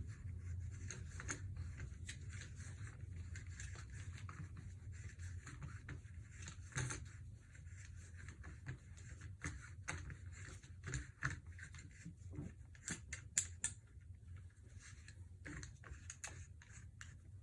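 Faint handling noises of a buttstock being fitted onto an MDT LSS-RF rifle chassis: scattered clicks, taps and scrapes, with a run of sharper clicks past the middle, over a low steady hum.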